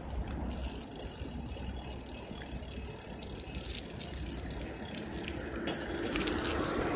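Bicycle ticking and rattling as it rolls along the road, over a steady rumble of wind and road noise that grows louder near the end.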